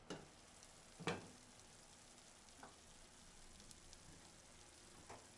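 Faint simmering of a creamy sauce in a frying pan, with a few light knocks and one clearer clink about a second in as the glass lid is lifted off the pan.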